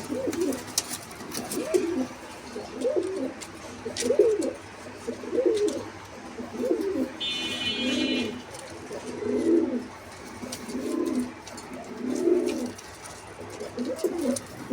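Domestic pigeons cooing over and over, a low warbling coo roughly every second and a half. A brief high-pitched tone sounds about seven seconds in, with faint clicks here and there.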